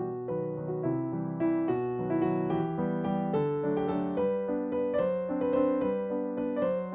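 Background piano music, a quick even run of notes.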